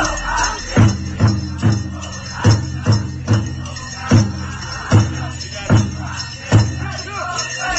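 Powwow drum struck hard in unison by the drum group, loud single beats in two quick runs of three, then four beats spaced further apart, while the singing drops out and returns near the end. Dancers' bells jingle underneath.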